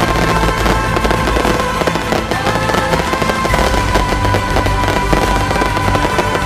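Dense, unbroken crackling of firecrackers going off in rapid succession, with a few held high tones sounding through the crackle.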